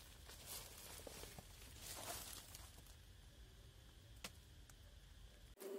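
Near silence: a faint outdoor background with a few soft rustles and one small click about four seconds in.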